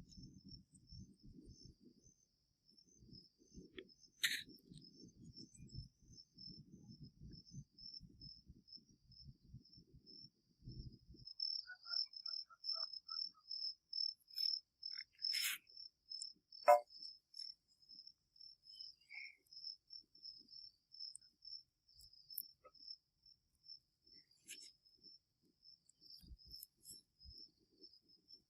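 Cricket chirping in a steady run of even, high pulses. A low rumble runs under it for about the first ten seconds, and a few sharp clicks sound in the middle.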